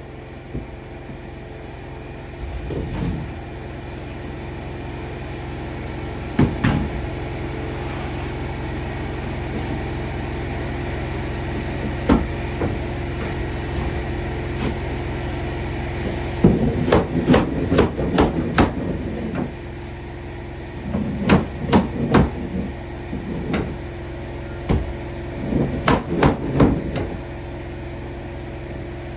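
Hammer striking wood, a few single blows and then quick runs of several strikes in the second half, over a steady low hum.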